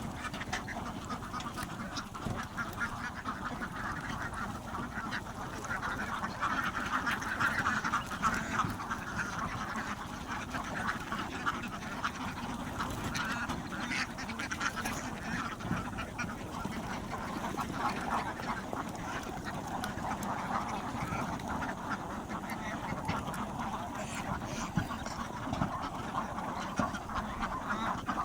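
Many animals calling at once in a continuous, dense chatter of short calls.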